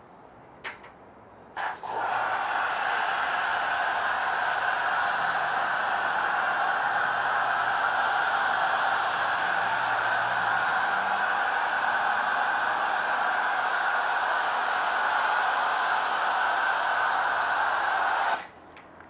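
Pressure washer spraying thick foam through a Big Mouth foam cannon, a steady hiss. It starts about two seconds in after a click and a short burst, runs about sixteen seconds and cuts off suddenly near the end.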